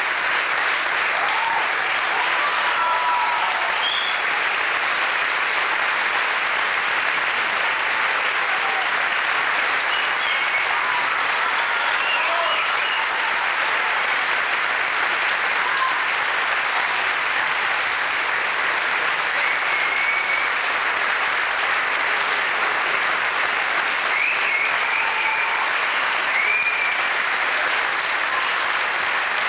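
Theatre audience applauding steadily through a curtain call, a dense, even clapping that neither swells nor fades.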